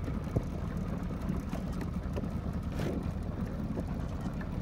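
Steady low rumble of wind buffeting the microphone on an open boat, with a few faint knocks.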